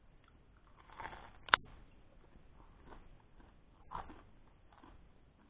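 A person chewing a mouthful of dry, over-baked white bread roll with salami and cheese, with faint, irregular chewing and mouth sounds. A single sharp click about one and a half seconds in is the loudest sound.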